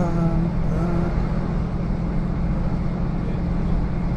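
Steady drone and rumble of a diesel passenger train, heard inside the carriage, with a constant low hum. A brief bit of voice comes in the first second.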